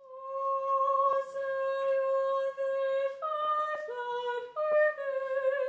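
A woman's voice singing slow, long-held notes: the first is held steady for about three seconds, then the melody steps through a few shorter notes, with a slight waver near the end.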